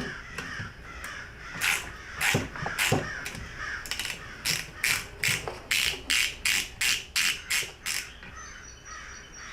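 Ratchet and socket clicking in a run of quick, even strokes, about three a second, after a few separate knocks, as a half-inch nut is backed off the vent window's pivot stud.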